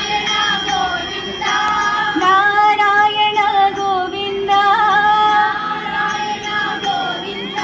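Women's voices singing a devotional bhajan, long held melodic notes over a regular percussion beat.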